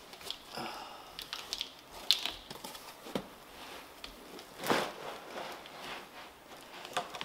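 Handling noise from 3D-printer parts being pulled out of foam packing in a cardboard box: scattered rustles, scrapes and clicks. There is a sharp click about two seconds in and a louder scraping rustle near five seconds.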